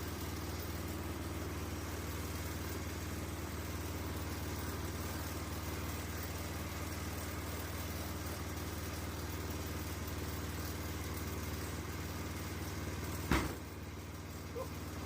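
Sawmill's engine idling steadily between cuts, with one sharp knock near the end.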